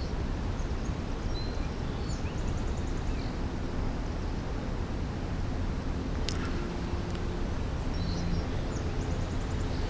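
Outdoor ambience: a steady low rumble with birds chirping now and then, and a single sharp click about six seconds in.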